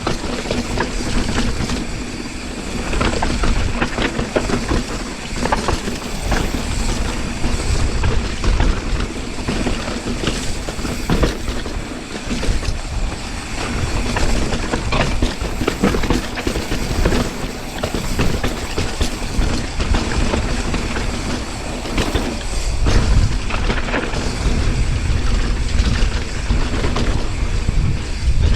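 Mountain bike descending a rough dirt trail: tyres running over dirt and rock with the bike's chain and frame rattling constantly over the bumps, and wind rumbling on the microphone.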